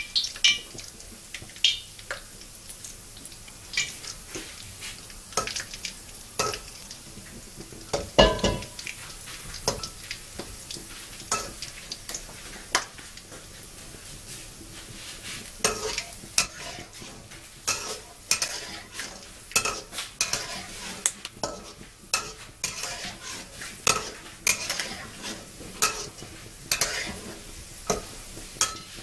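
Peanuts frying in shallow oil in a wok, a faint steady sizzle under sharp ticks and knocks. About eight seconds in there is one loud knock. From about halfway, a metal spatula scrapes and clacks against the wok more and more often as the peanuts are stirred.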